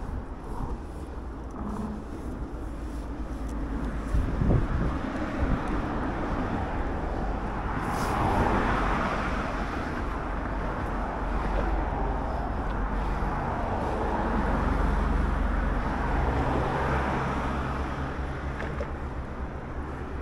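Road traffic on a bridge heard from a moving bicycle: a steady low rumble, with passing cars swelling about eight seconds in and again around fifteen seconds.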